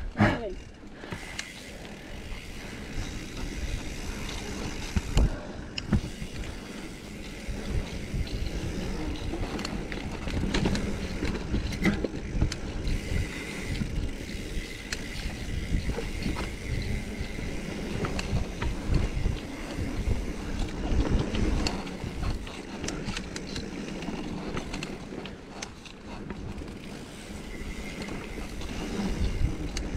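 Mountain bike being ridden over singletrack: irregular rattling, clicking and knocking from the bike, with steady tyre-on-dirt rumble.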